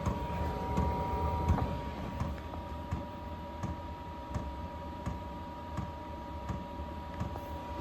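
A diesel air heater running warmed up, its fuel dosing pump ticking slowly about every 0.7 seconds over the steady hum of the heater's fan and a thin steady whine. The slow click rate shows the pump delivering little fuel once the heater is up to temperature.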